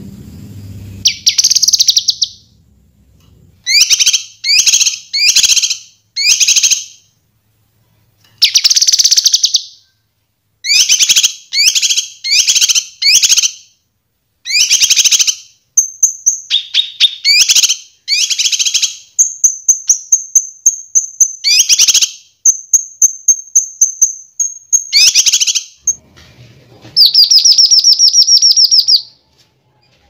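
Kinoi, a leafbird, singing a varied song: short loud trilled phrases one after another with brief pauses, a thin steady high whistle running under them in the middle, and a longer buzzy trill near the end.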